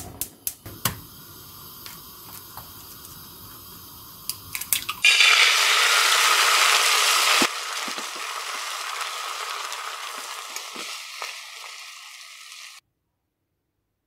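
A few sharp clinks and clicks, then a loud steady hiss starting about five seconds in. The hiss eases at seven and a half seconds, carries a few crackles, and cuts off abruptly near the end.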